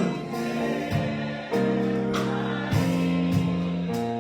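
Live gospel music accompaniment between a soloist's sung lines: held chords that shift a couple of times, with a few drum and cymbal hits.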